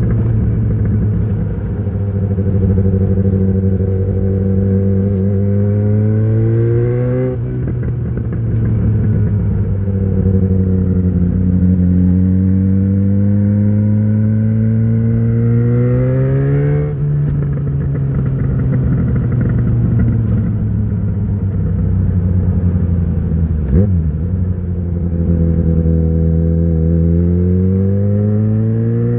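2013 Yamaha XJ6's 600 cc inline-four engine running through an Ixil full exhaust with the dB killer fitted, under way on the road. The engine pitch climbs gradually and drops sharply at gear changes about 7 and 17 seconds in. It then eases down for a few seconds and climbs again near the end.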